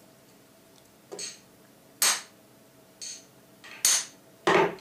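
Five sharp knocks, roughly one a second, the second, fourth and fifth louder than the rest: a screwdriver handle striking an open-end spanner seated in a Weihrauch HW80 air rifle's end cap. The blows tap the end cap round to align it with the chamber.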